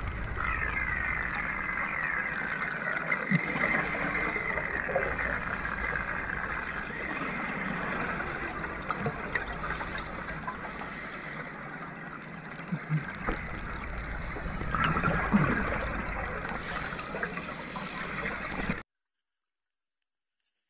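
Underwater sound of surface-supplied divers breathing: a steady rushing of air and bubbles, with a hiss that swells about every six seconds as a breath is drawn and let out through the regulator, and a few faint knocks. It cuts off suddenly near the end.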